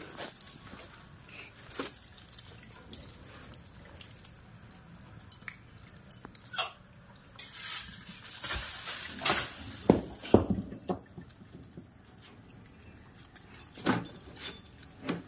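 Metal window grille knocking and clattering as monkeys climb and grip its bars: scattered sharp clanks and rattles, coming thick and loudest in the middle, with a couple more knocks near the end.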